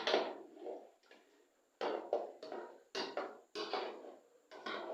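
Cooking utensils knocking against a pot: about five sharp knocks at uneven intervals, each dying away quickly.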